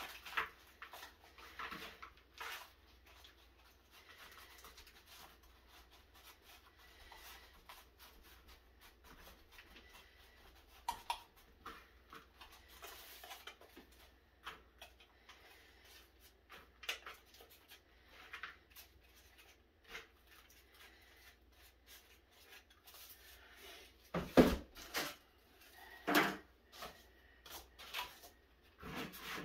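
Potting soil being scooped by hand and pressed into plastic seed-starting cell trays: soft rustling and scraping with small plastic clicks and taps. Near the end a much louder thump, then a few more knocks.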